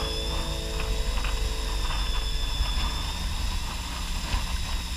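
Fishing boat's engine running with a steady low rumble, under the hiss of wind and sea.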